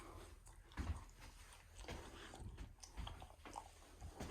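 Faint, scattered light knocks and rustling handling noises in a quiet room, the clearest knock about a second in.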